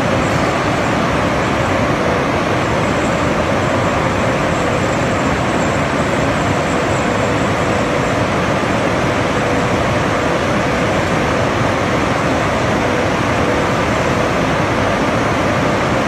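Machinery of a 20-tonne-per-hour rice milling plant running: a loud, even, unbroken noise with a faint steady tone in it.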